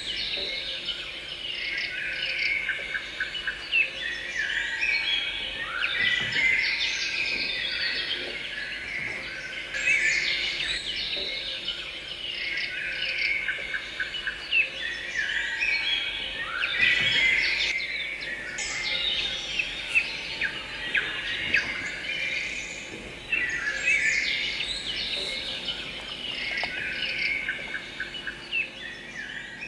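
Several songbirds chirping and singing together, with busy bursts of song every few seconds.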